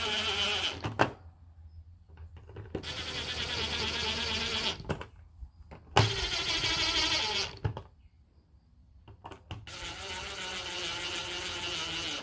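DeWalt cordless impact driver running in bursts of about two seconds, four times with short pauses between, driving screws back into a metal housing.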